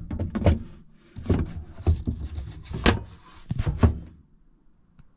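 An MDF cupboard-door panel being fitted into a wooden cupboard opening: a series of short knocks and bumps as it is pushed and pressed into place, with rubbing handling noise between them.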